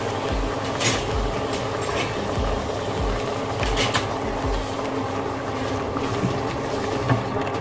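A metal utensil stirring a simmering sauce in a cooking pot, with a few sharp clinks against the pot in the first half, over a steady hum.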